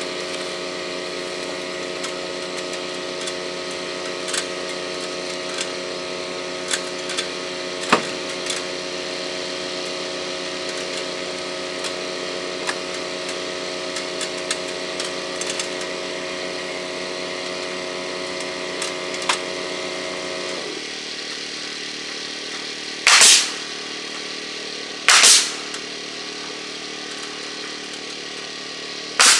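Small gasoline engine running steadily, dropping to a lower, quieter note about two-thirds of the way through, with scattered knocks. Near the end come three loud, sharp bursts of noise.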